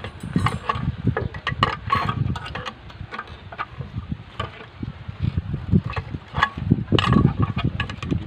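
Thin steel rebar being bent into stirrups with a hand bending bar on a pinned wooden jig: irregular metallic clinks and taps as the bar and rod knock against the pins and each other, over a steady low rumble.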